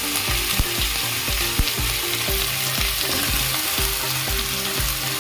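Chicken and vegetables sizzling as they fry in a pan and are stirred with a spoon, with a few sharp scrapes. Background music with a steady beat plays underneath.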